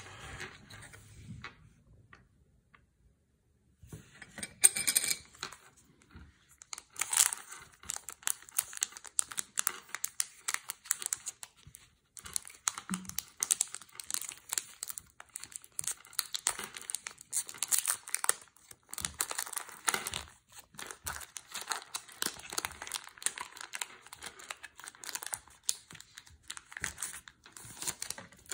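Foil booster-pack wrapper being torn open and crinkled by hand: a run of crackling, rustling tears that starts about four seconds in and goes on almost to the end.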